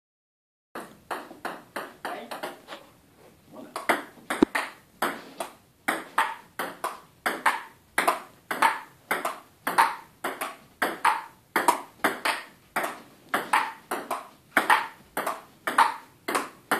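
Table tennis ball clicking back and forth off the paddles and table in a long, unbroken rally, about two hits a second, starting just under a second in.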